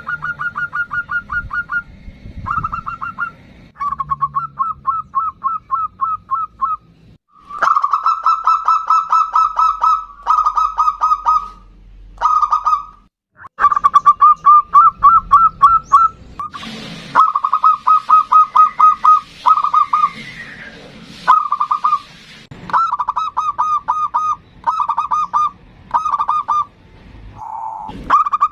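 Zebra dove (perkutut) singing: repeated phrases of rapid, staccato cooing notes, each phrase lasting one to two seconds, with short pauses between them.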